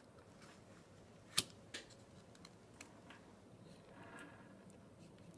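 Faint handling of paper clips on a thin aluminum-can relief against a board: light ticks and rustles, with one sharp click about a second and a half in.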